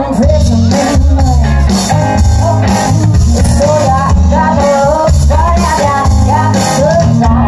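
Live rock band playing loudly over a stage PA, with bass, drums and electric guitars under a woman singing the melody; the full band comes in just at the start.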